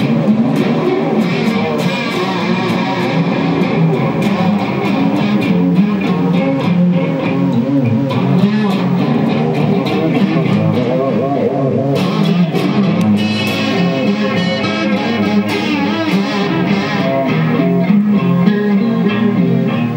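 Music played on guitar, with plucked and strummed strings over a bass line.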